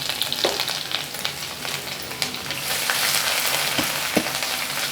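Crushed garlic and ginger frying in hot oil with mustard seeds and urad dal: a steady sizzle with many small crackles as the tempering is stirred in the pan.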